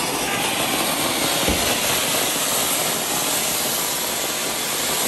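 Ground fountain firework (flower pot) spraying sparks with a steady, loud hiss.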